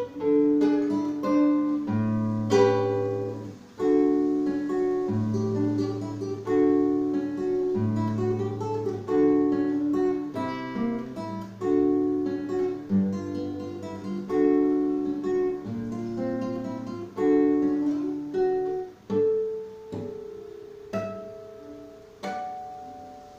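Solo classical guitar played fingerstyle: a flowing run of plucked melody notes over low bass notes. Near the end it thins to a few separate struck notes that are left to ring out and fade as the piece closes.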